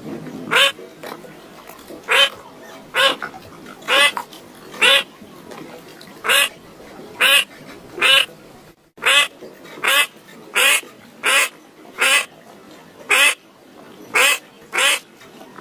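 A duck quacking over and over, about seventeen short, loud quacks at a steady pace of roughly one a second.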